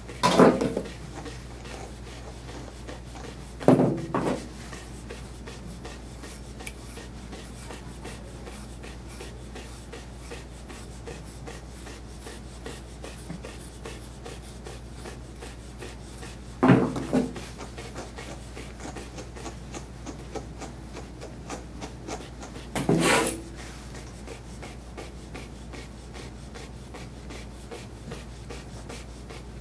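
A grooming comb rubbing through a Portuguese Water Dog's curly coat, with four short, louder rustling bursts.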